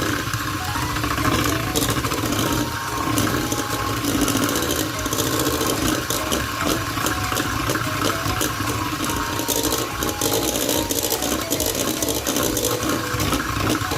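A small electric kitchen appliance motor, such as a mixer or blender, running steadily, with a loud even whir that stops suddenly at the end.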